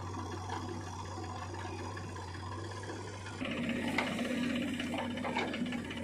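Diesel engines of a JCB 3DX backhoe loader and a Mahindra 475 DI tractor running steadily. About three and a half seconds in, the sound shifts to a higher, louder engine note with a few sharp knocks as the backhoe bucket dumps sand into the tractor's trolley.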